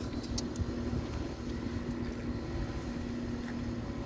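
Steady low drone of an engine running, with a constant hum, and a few faint clicks near the start.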